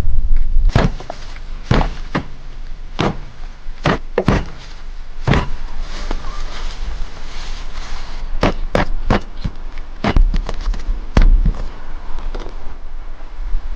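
A series of about fifteen sharp knocks and thuds, spaced unevenly, with a low rumble at the start and again around ten to eleven seconds in.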